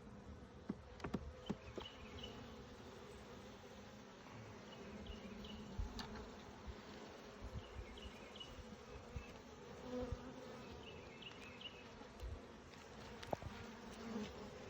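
Honeybees humming from an open hive as its frames are inspected: a low steady buzz that swells and fades a little, with a few light knocks of frame handling.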